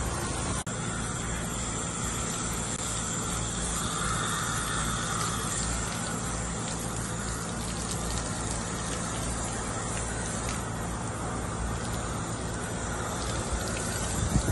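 Garden hose spraying water over a dog's wet coat and splashing onto a concrete floor, a steady rush of water.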